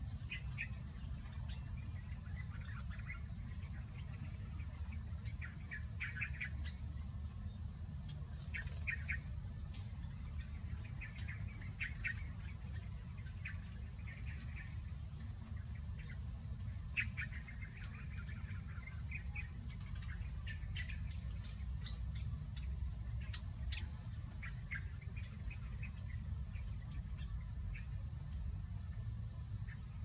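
Scattered short bird chirps and twitters, several a second at times, over a steady high-pitched insect drone and a low rumble.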